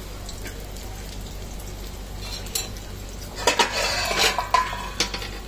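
A metal spoon scraping and clinking against a ceramic bowl as omelette batter is emptied into a frying pan, over a faint sizzle of the batter in hot butter and ghee. The clinks and scrapes come in a quick run from about three and a half seconds in.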